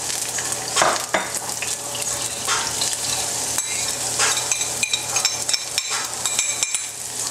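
Diced garlic and onion sizzling in hot olive oil in a frying pan, with a utensil stirring and scraping against the pan.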